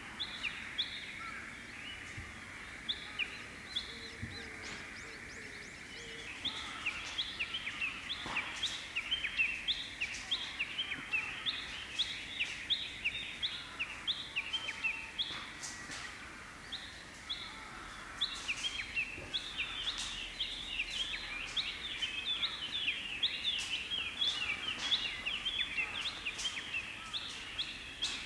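Wild songbirds singing outdoors: a dense run of short, quick, repeated chirping notes that thickens about six seconds in, eases briefly around the middle, then picks up again.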